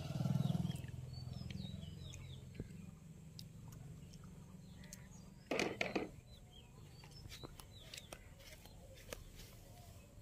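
Faint outdoor ambience: a low rumble in the first two seconds, a few faint high chirps, and a short noisy burst about five and a half seconds in.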